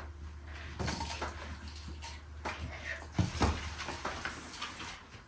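Scattered soft knocks and scuffs of a girl dancing in slide sandals on a tiled floor, getting up from a kneel, over a low steady room hum.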